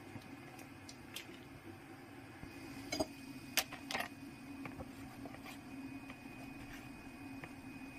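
Light clicks and knocks of kitchen handling on a plastic cutting board: a few sharper clicks about three to four seconds in, then lighter taps as a kitchen knife cuts through a thin egg pancake. A steady low hum runs underneath.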